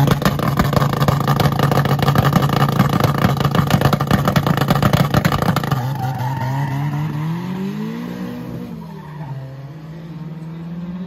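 Drag-racing VW Gol's engine held at steady high revs on a launch limiter, with rapid crackling pops. About six seconds in it launches: the revs climb, drop for a gear change about three seconds later, and climb again as the car pulls away and fades.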